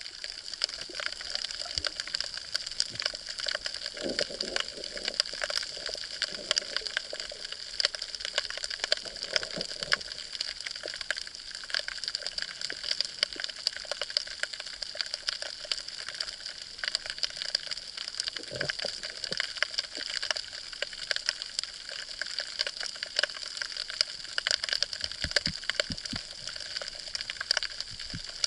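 Underwater ambience picked up by an action camera in its waterproof housing at about a metre depth: a steady hiss thick with fine crackling clicks, with a few low thumps and swishes now and then.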